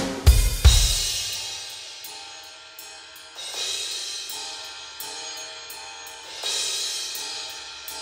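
Roland electronic drum kit played along to a song: three heavy low drum hits in the first second die away, then cymbal crashes come about 3.5 and 6.5 seconds in over held notes from the backing.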